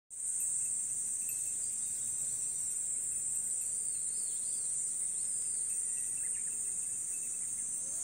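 Insects calling in one steady high-pitched drone, with a few faint bird chirps about halfway through.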